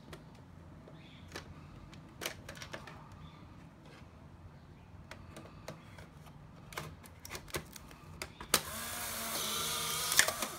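Plastic clicks and knocks as a film pack is slid into a Polaroid 636 Closeup camera, then a sharp snap as the film door shuts near the end. The camera's motor then whirs for about two seconds, pushing out the film pack's dark slide.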